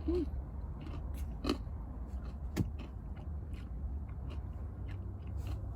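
Close-up mouth sounds of someone chewing a spoonful of acai bowl with oatmeal: small wet clicks and smacks scattered throughout, with a short closed-mouth "mm" at the start.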